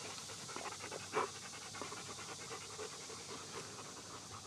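German shepherd dogs panting rapidly in their kennel cages, with a brief louder noise about a second in.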